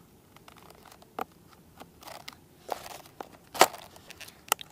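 Foam wing of a Finwing Traveler V2 RC plane being pressed onto the fuselage and its latches snapped shut: a handful of separate clicks and crackles of foam and plastic, the sharpest one about three and a half seconds in.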